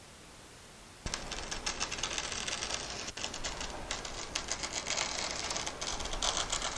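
A thin Kaizen knife blade sawing and dragging through Kaizen foam, a rapid crackling scrape that starts about a second in and keeps going in quick strokes.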